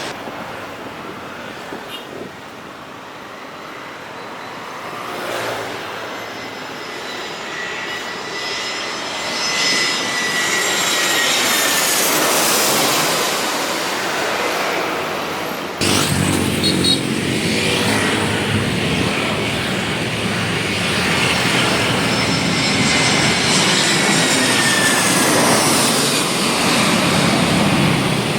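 Airbus A320 airliners passing on landing, their CFM56 jet engines whining with high tones that fall in pitch. About 16 seconds in the sound changes abruptly to a second A320, which is louder and fuller.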